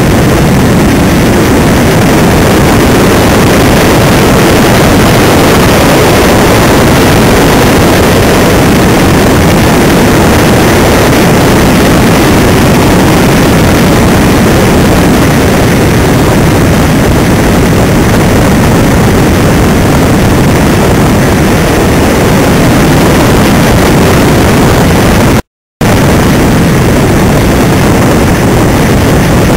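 Loud, steady rush of airflow buffeting a camera's microphone mounted on a Doppelraab glider in flight. It cuts out for a moment at an edit about 25 seconds in, then carries on.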